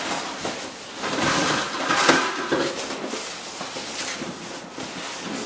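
Large cardboard gun box being handled and shifted, with scraping and several knocks.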